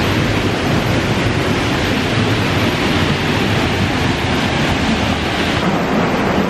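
Fast-flowing river rushing over rocks in a ravine: a steady, loud rush of white water that turns a little duller near the end.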